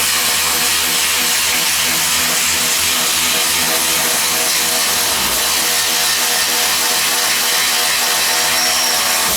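A power tool on a 15 mm socket runs steadily for about nine seconds, spinning out a motor mount bolt. It starts suddenly and stops near the end.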